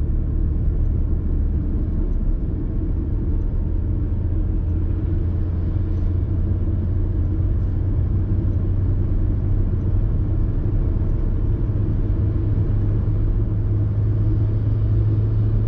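Ford Fiesta 1.25-litre four-cylinder petrol engine heard from inside the cabin, accelerating in fifth gear as revs climb from about 2,000 to 3,000 rpm. It makes a steady low drone that rises slightly in pitch.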